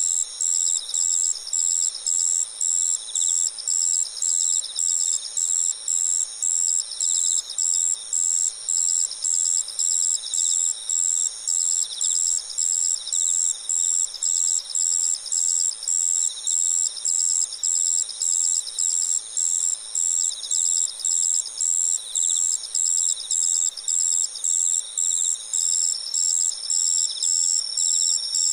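A chorus of singing autumn insects (crickets): one loud, very high-pitched chirp repeating evenly about three times every two seconds, over softer continuous trills from other insects, one of which the recordist takes for possibly a madara-suzu ground cricket.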